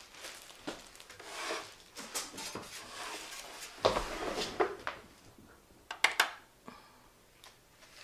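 Rustling and handling noise as a bagged raw sheep fleece is moved about, with a soft thump about four seconds in as it is set down, and two sharp clicks a little after six seconds.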